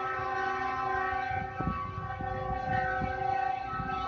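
Diesel locomotive's air horn sounding one long, steady blast of several tones at once, over the low rumble of the train running on the rails.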